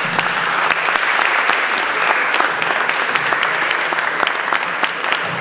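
Audience applauding, many pairs of hands clapping at once in a steady, sustained round.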